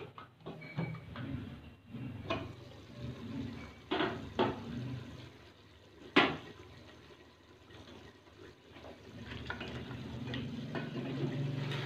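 Metal pressure cooker being opened: a few sharp clanks of the lid and pot, the loudest about six seconds in, over liquid sounds from the cooked goat trotters and broth inside, which grow louder near the end.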